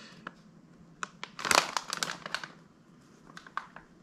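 Clear plastic parts bag full of hard plastic RC car parts crinkling as it is handled, loudest about a second and a half in, with a few fainter rustles near the end.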